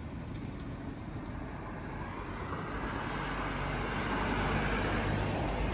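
A vehicle passing on a wet road: tyre hiss over a low rumble, swelling louder over the last few seconds.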